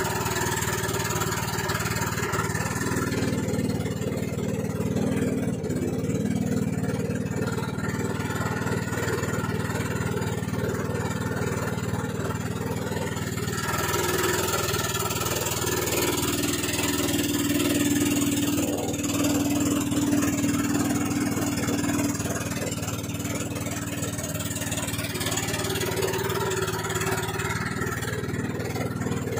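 Small motorboat's engine running steadily while the boat is underway, its note shifting a little higher about halfway through.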